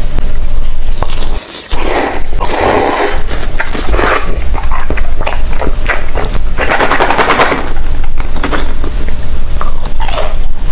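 Loud, close-miked eating sounds: crisp food crunching and crackling between the teeth in quick, dense bites. Near the end, Pringles potato chips are being bitten.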